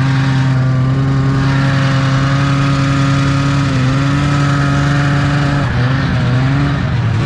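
1975 Arctic Cat Panther 440 snowmobile's two-stroke twin engine running at a steady throttle while pushing through deep snow. About six seconds in, its pitch wavers and drops as the throttle eases off.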